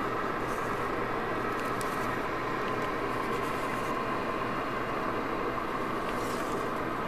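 Steady jet engine noise on an airport tarmac: an even roar with a constant high whine.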